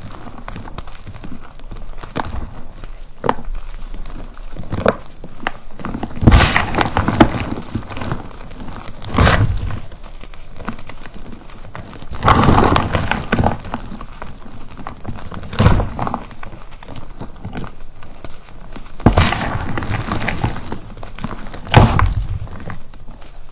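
Lumps of purple reformed gym chalk being crushed and crumbled between the fingers, the pieces and powder falling back onto the pile: a continuous gritty crackle with a louder crunch every three seconds or so as a fresh handful is squeezed.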